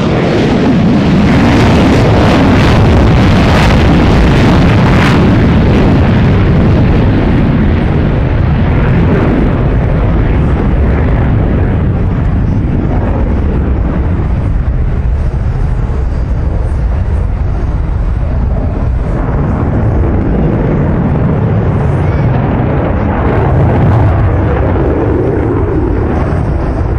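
F/A-18E Super Hornet's twin General Electric F414 turbofans at full power with afterburners lit, crackling sharply for the first five seconds or so, then a steady heavy jet rumble that eases a little and swells again near the end.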